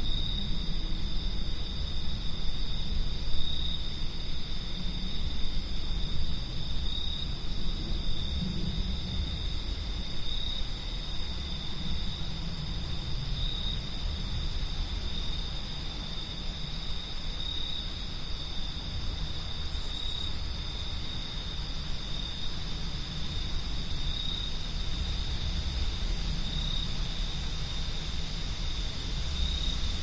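Wind blowing at night as a low, uneven rumble, with a steady high trill of insects over it.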